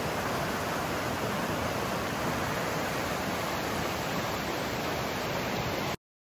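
Fast whitewater river rushing over rapids, a steady hiss of water that cuts off suddenly near the end.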